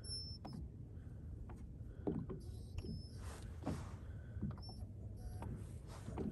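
Low steady rumble with scattered light knocks and clicks, as of gear being handled in a small fishing boat, and a few short high beeps.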